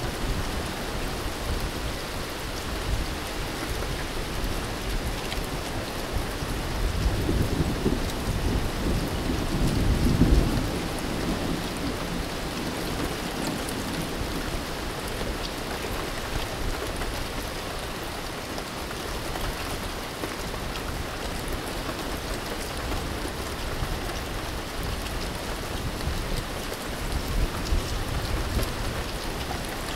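Steady rain falling on open water. A low rumble swells and fades about seven to eleven seconds in.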